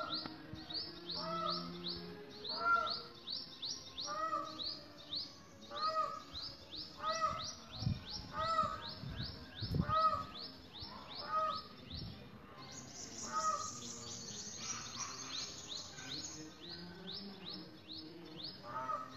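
Birds calling: a quick run of high, falling chirps, about three a second, over a lower call repeated about every second and a half. A higher buzzing chirr joins for a couple of seconds past the middle, and two dull thumps come near the middle.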